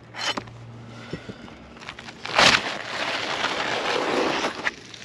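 Stiff asphalt roof shingle crunching and scraping as it is worked loose, with a sharp crackle about two and a half seconds in followed by about two seconds of steady scraping. The shingles are too brittle to bend without cracking.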